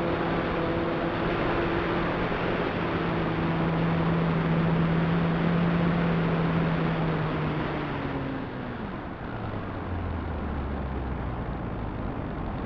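Electric motor and propeller of an RC model plane heard from its onboard camera, with wind rushing over the microphone. The motor's steady hum drops in pitch and gets quieter about eight seconds in, as the throttle is pulled back.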